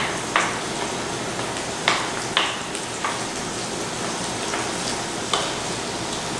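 Skillet of chicken sausage with eggplant and plum tomato sauce sizzling with a steady hiss. A few sharp taps of the stirring utensil against the pan, about half a second in, around two seconds in, and again past five seconds.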